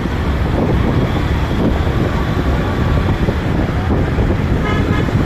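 Wind buffeting the microphone over steady road-traffic rumble, with a short vehicle horn toot near the end.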